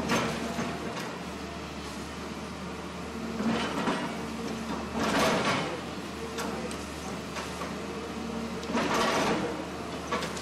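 JCB excavator with a hydraulic breaker attachment demolishing concrete walls: a steady engine hum, broken four times by about a second each of grinding, crumbling concrete, loudest a little past the middle.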